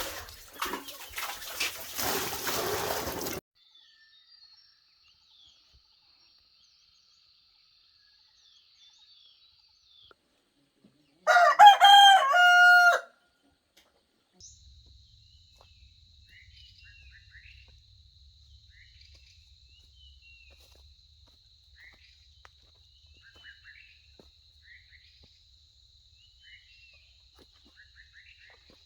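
A rooster crows once, loud, about eleven seconds in, a call of a second and a half that falls in pitch at its end. Around it are faint small-bird chirps and a steady high insect drone, and the first three seconds hold a rushing noise.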